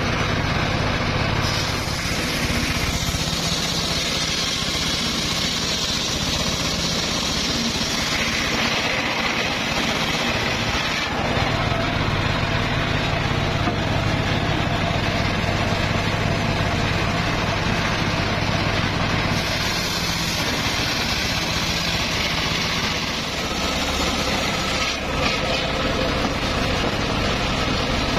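Homemade circular saw bench ripping a log lengthwise: the big blade cuts through the wood with a dense, steady hiss over the drone of its drive motor. The cutting noise changes a few times as the wood is pushed through and repositioned.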